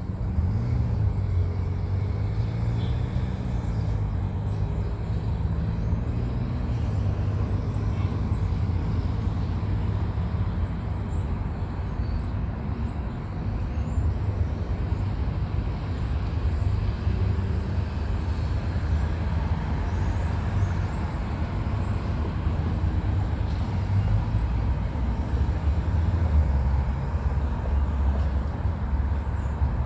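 Steady low rumble of wind buffeting the microphone, with a low hum in the first several seconds.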